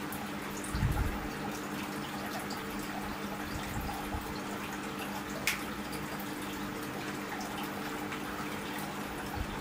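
Small clay-pot tabletop fountain running: water trickling and splashing steadily, with the steady low hum of its small water pump. A low thump about a second in and a sharp click about halfway through.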